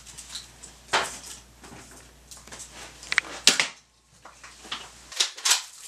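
Toy foam-dart shooting: a few separate sharp knocks and clatters, one about a second in, another a little past halfway and a couple more near the end.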